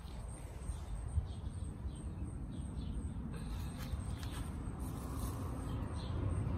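Outdoor background sound: a steady low rumble with a few faint, short bird chirps scattered through it.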